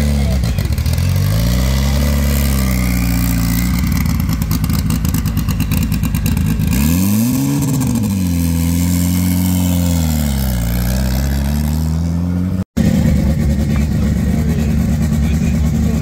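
Mitsubishi Lancer Evolution GSR's engine being revved up and down several times, the pitch climbing and falling with each blip, with a rapid crackling over it for a few seconds in the middle. After a sudden break near the end, an engine runs steadily at idle.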